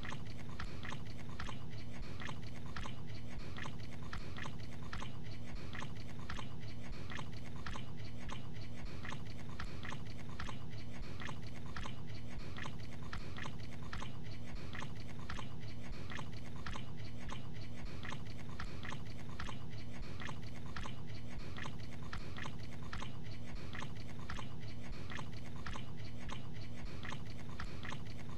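A man chewing a mouthful of gabagool (capicola) noisily and wetly, in a steady, even rhythm of about two chews a second.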